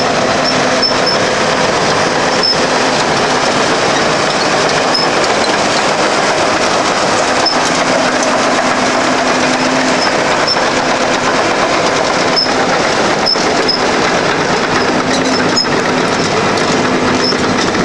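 John Deere 750C crawler dozer running steadily: a dense mechanical din with scattered sharp clicks and clanks, typical of a working dozer's steel tracks and undercarriage.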